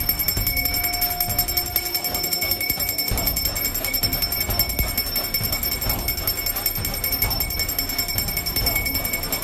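A bell ringing rapidly and without a break, over music.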